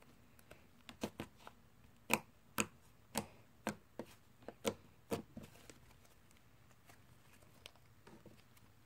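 Slime being worked by hand, giving a run of about a dozen sharp clicks and pops, roughly two a second. They stop a little past the middle, leaving only a few faint ticks.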